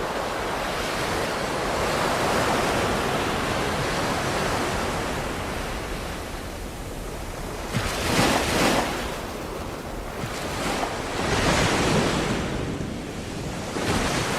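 Ocean surf: waves washing in steadily, with a few louder breakers surging and falling away about halfway through and again near the end.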